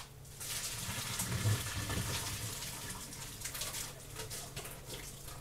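Water running into a sink, starting about half a second in, strongest for a second or two, then gradually easing.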